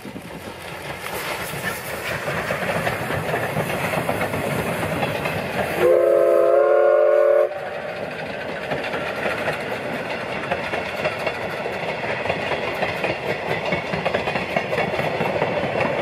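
A passing train of passenger coaches hauled by a C56 steam locomotive rolls steadily along the rails. About six seconds in, a loud steam whistle sounds once for about a second and a half, a chord of several tones that stops abruptly.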